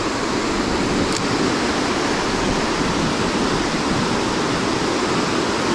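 Flowing river water making a steady, even rushing sound.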